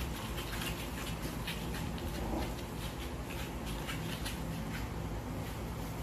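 Newborn puppies scrambling about on a mat: soft, frequent scratching and patter of little claws and paws over a steady low background hum.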